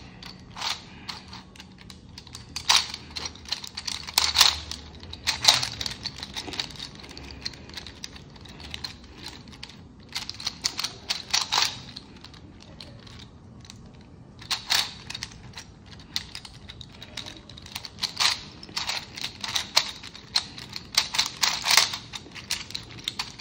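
Plastic clicking and clacking of a TimeMachine puzzle cube, a 2x2 with numbered dials, as its layers are turned by hand: irregular runs of quick turns broken by short pauses.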